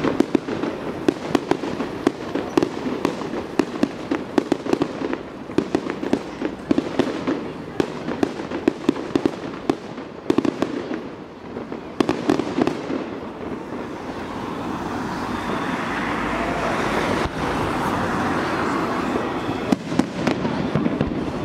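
Aerial fireworks bursting overhead, with many rapid crackles and pops from crackling stars. In the last third the crackle thins and a louder, steady rushing hiss builds.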